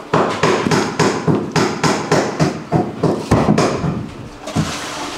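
Hammer striking repeatedly at a steady pace of about three blows a second, stopping about four seconds in, followed by one more blow.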